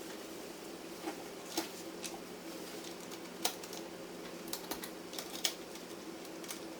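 Scattered sharp clicks and taps of hands handling server parts, played back at triple speed, over a steady low hum.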